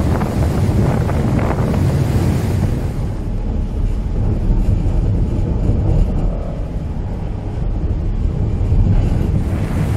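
Wind buffeting the microphone over the ferry's wake churning through broken sea ice. About three seconds in this gives way to the ship's steady low engine rumble heard inside the passenger cabin.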